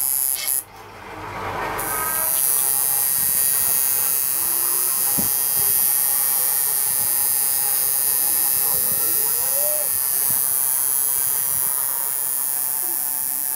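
Coil tattoo machine buzzing steadily as it runs in the skin, with a high, even hiss-like buzz.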